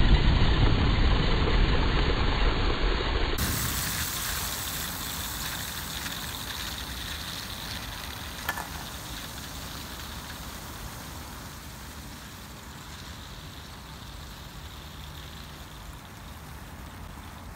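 A bundle of sparklers burning together as a jet in a can on a toy pickup, giving a loud, rushing hiss of fizzing sparks. A few seconds in, the hiss drops suddenly, then fades slowly as the sparklers burn down, with a single sharp click about eight and a half seconds in.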